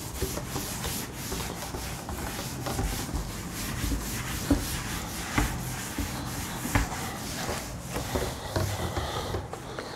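A cloth is wiped over a chalkboard with steady rubbing strokes, cleaning it, and a few light knocks come in along the way.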